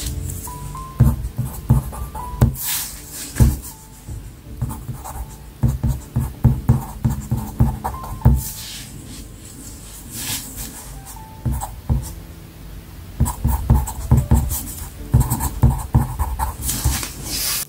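A mechanical pencil writes on paper over a cutting mat, making quick taps and scratches of the lead as short notes and numbers are written. The writing comes in bursts with short pauses between them.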